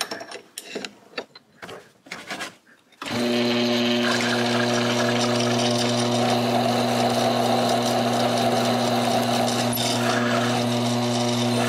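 A few light clicks and knocks as parts are set in place, then, about three seconds in, the homemade milling machine's spindle motor starts with a steady hum. A 3/8-inch reamer cuts through a hole in the metal block, adding an even rasping cutting noise that brings the hole up to size.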